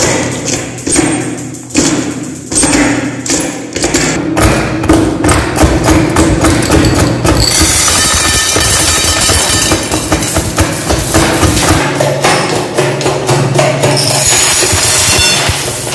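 Glass marbles clacking and knocking inside a hand-cranked metal meat grinder as its crank is turned, a dense, continuous run of hard clicks and knocks. Near the end more marbles are poured into the hopper.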